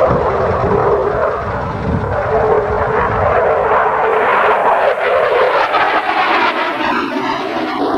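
Jet fighter in a display flight overhead, its jet engine noise a loud steady rush that thins slightly toward the end.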